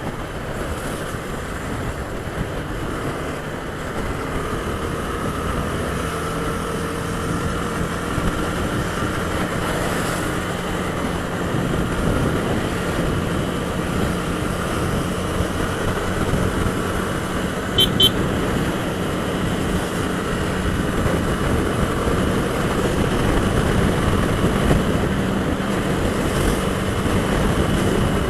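Honda CB 250 Twister's single-cylinder engine running steadily at riding speed, under a constant rush of wind and road noise that grows slowly louder, with a brief double click about two-thirds of the way through.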